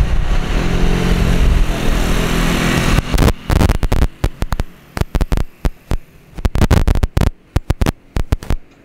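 Boeing 787-9's Rolls-Royce Trent 1000 jet engines running steadily at taxi power, with a low hum. From about three seconds in, choppy wind buffeting on the microphone breaks it up into irregular thumps.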